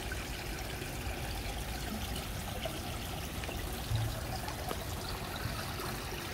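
Water steadily trickling and splashing into a small garden fish pond, fed by the pond's water pumps. A soft low thump about four seconds in.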